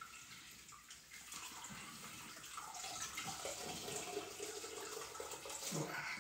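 Sweet wort running and dripping back into a stainless steel brew pot as a grain bag of mashed malt is twisted and squeezed by hand, wringing the liquid out of the spent grain. The flow gets louder after about a second and a half.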